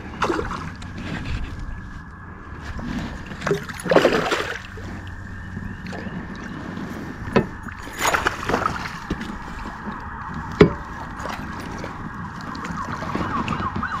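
A hooked chain pickerel splashing and thrashing at the surface beside a kayak, with loud splashes about four and eight seconds in. Under them runs a steady whir from a baitcasting reel winding in line, with a sharp click about ten seconds in.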